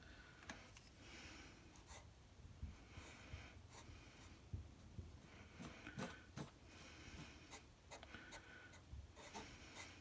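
Faint scratchy strokes of a wet paintbrush smoothing damp Sculptamold, coming and going every second or two, with a few light clicks.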